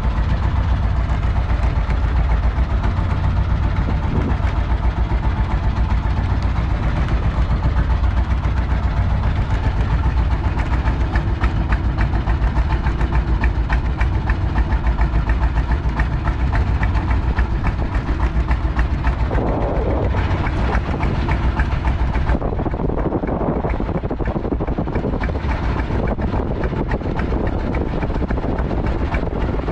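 An engine running steadily at idle, with a fast, even putter.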